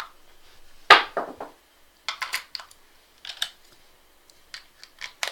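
Irregular plastic clicks and knocks from a wireless computer mouse having its dead battery swapped out, with the loudest knock about a second in.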